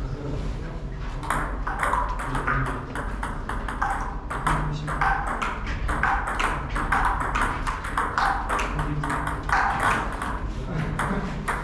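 Table tennis ball being hit back and forth in a rally, a quick run of sharp clicks off paddles and table starting about a second in.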